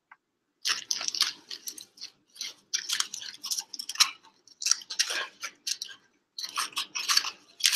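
Aluminium foil crinkling and rustling in irregular bursts as a foil-wrapped burrito is peeled open by hand, starting about half a second in, with a brief pause near the end.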